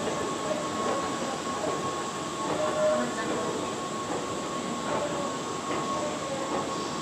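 Long escalator running: a steady mechanical rumble with a constant whine through it.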